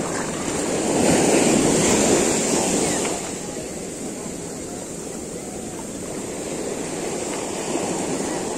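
Ocean surf breaking and washing in over the shore, one wave rushing in louder from about one to three seconds in.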